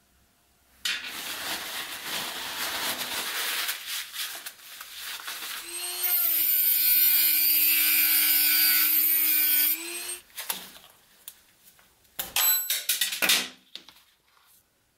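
Dremel rotary tool grinding the factory pinion gear on a small DC motor's shaft. A few seconds of rasping come first, then about six seconds in a loud, steady whine for about four seconds that stops abruptly. A few clicks follow near the end.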